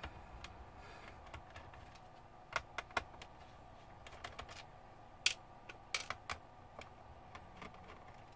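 Irregular small clicks and taps from hands working on a laptop's plastic case and its small screws during disassembly, with a few sharper clicks in clusters about three and six seconds in.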